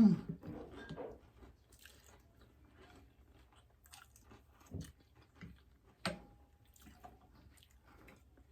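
Close-up chewing and crunching of crispy breakfast food such as bacon and hash browns, in scattered short crunches. It opens with a brief loud vocal sound, and about six seconds in there is a sharp click with a short ringing tone.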